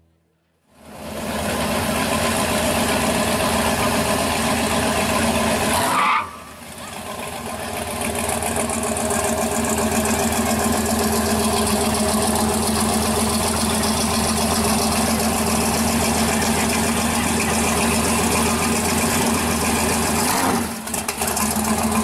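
Big-block V8 of a 1967 Chevy II Nova pro street car running loud and steady as the car pulls away slowly. About six seconds in it revs up with a rising pitch that cuts off sharply, then builds back up.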